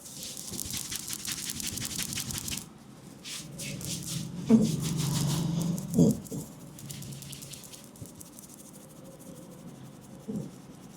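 Barber's hands rubbing briskly through hair and over the scalp in a head massage: a fast run of brushy rubbing strokes for the first few seconds, then lighter, sparser rubbing, with a brief low hum-like sound about halfway through.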